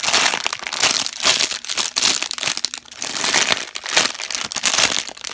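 Clear plastic packaging bag crinkling loudly and continuously as hands squeeze a foam squishy toy through it.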